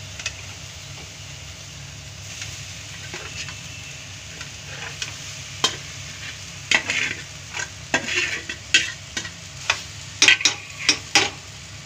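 Leftover cooked rice going into a metal kadhai of fried onion-tomato masala over a low gas flame, with quiet sizzling; from about six seconds in a metal spoon scrapes and clinks against the kadhai, more and more often, as the rice is stirred in.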